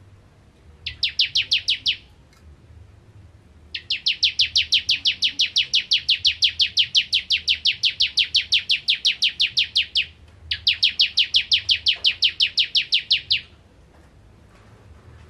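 Bar-winged prinia (ciblek kristal) singing in three bouts of fast, evenly repeated high notes, about ten a second. The middle bout runs about six seconds without a break.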